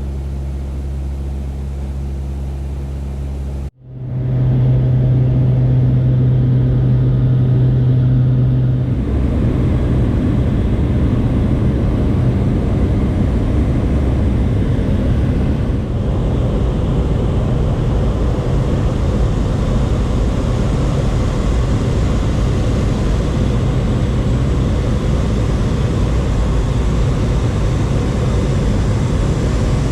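Propeller engine of a small passenger plane running steadily, heard from inside the cabin: a loud, even drone. The drone breaks off abruptly about four seconds in and resumes louder, then turns rougher and fuller about nine seconds in.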